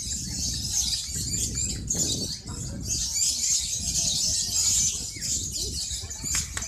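Lovebirds giving their long, shrill, rapid chattering trill (the 'ngekek' song judged at lovebird contests), almost without a break, over a low rumble.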